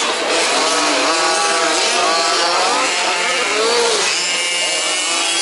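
Several 1/5-scale petrol RC off-road cars racing at once, their small two-stroke engines running like chainsaws and revving up and down over one another at different pitches.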